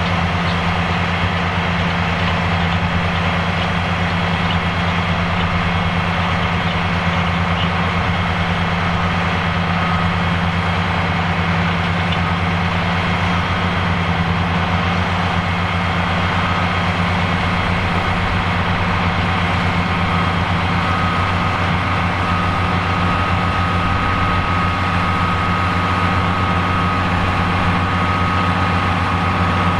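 Fiat 110-90 DT tractor's diesel engine running steadily. A thin high whine grows stronger about two-thirds of the way through.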